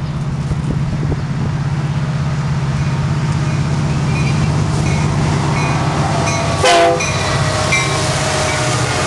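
Steady rumble and hum of a moving passenger train heard from inside the coach. A train horn gives one short, loud blast about two-thirds of the way through.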